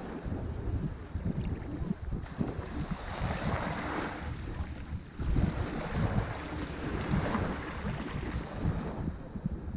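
Ocean surf breaking and washing up a shore, with a louder hissing wash about three seconds in. Wind buffets the microphone with a gusty low rumble.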